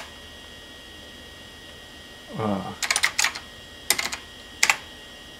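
PC keyboard keys being typed: a quick run of keystrokes about three seconds in, then single presses about four seconds in and near the end, as a command is typed at the prompt. A short hummed voice sound comes just before the typing.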